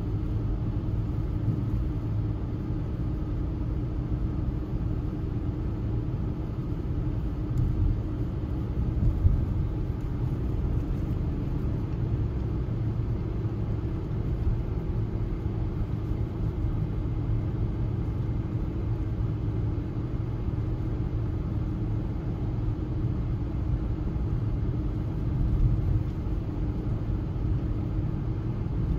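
Steady road and engine rumble heard inside a moving car's cabin while it drives along.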